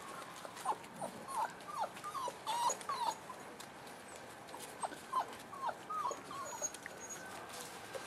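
Five-week-old Boerboel puppies whimpering and squealing as they play, short falling cries in two flurries, one about a second in and another around five seconds in.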